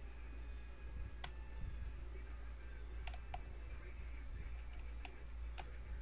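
Faint metallic clicks of lock picks working inside a custom challenge lock, about six separate clicks over a few seconds, over a low steady hum.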